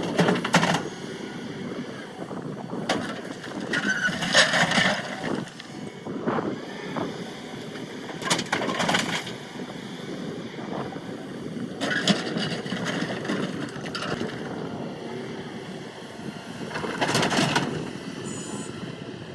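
Excavator running steadily under load, with about five loud crunching, scraping bursts as the bucket digs into rock.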